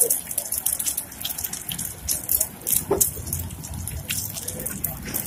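Egg frying in hot oil in a pan, sizzling with frequent irregular crackling pops.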